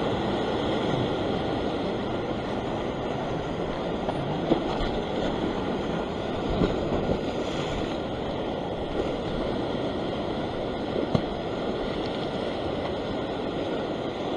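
Waves washing and breaking over a rock shelf, a steady surf wash, with a few short clicks about four and a half, six and a half and eleven seconds in.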